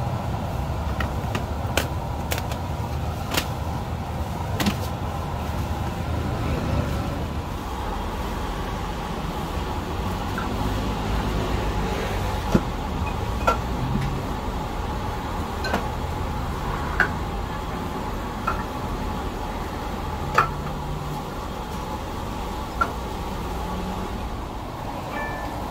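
Steady road traffic rumble from a busy street, with short sharp clicks and clinks scattered throughout.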